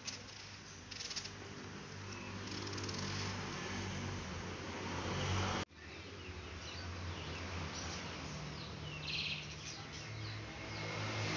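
Domestic cat purring, a low rumble that swells and fades every second or two. A few faint bird chirps come in about nine seconds in.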